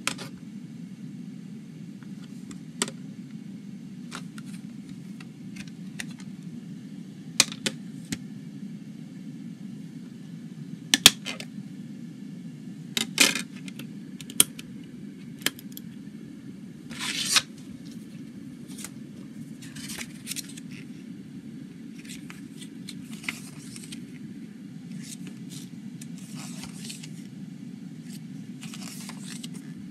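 A plastic CD jewel case is handled and opened, giving a series of sharp clicks and snaps, with a disc being pressed in its tray. In the second half come softer rustles of the paper booklet's pages being turned. A steady low hum runs underneath throughout.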